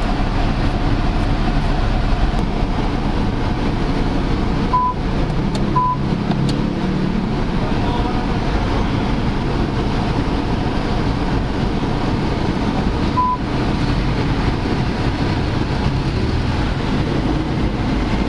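Steady car-cabin noise, with three short high beeps from the Changan CS75 Plus infotainment touchscreen as it is tapped: two close together about five seconds in and one more near thirteen seconds.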